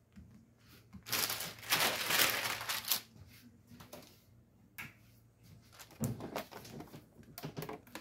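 A sheet of parchment paper crinkling and rustling for about two seconds as it is handled and laid flat, followed near the end by a few knocks and bumps as a heat press is set down on it.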